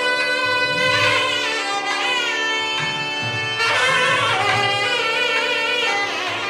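Instrumental South Indian devotional music: a reed-like wind instrument plays a melody with sliding, wavering ornaments over a steady drone.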